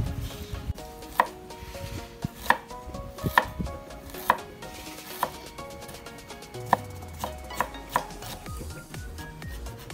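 Chef's knife cutting fresh ginger on a wooden cutting board, slicing it and then cutting it into thin strips. The blade knocks against the board about nine times, unevenly spaced, roughly once a second.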